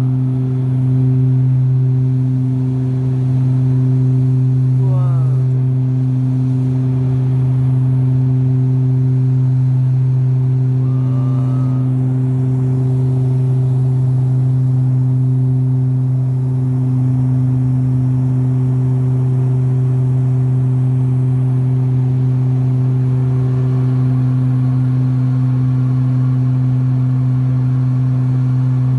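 Steady low drone of an aircraft's engines heard inside the cabin during the climb after takeoff, a loud even hum with a couple of higher overtones.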